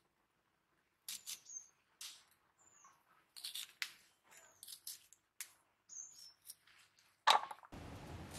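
Crisp snaps of a knife cutting through raw white radish, at irregular intervals. Small birds chirp faintly in the background. Near the end comes one sharp knock, followed by a steady hiss of background noise.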